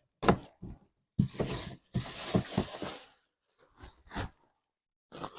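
Irregular rustling and knocking handling noises, with a longer crinkling rustle in the middle, as the old kerosene heater wick is moved about.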